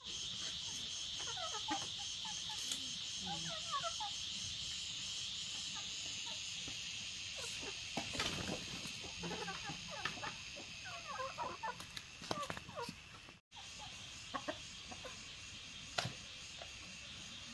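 Chickens clucking over a steady, pulsing high insect drone, with a few sharp knocks. The insect drone drops away abruptly about two-thirds of the way through.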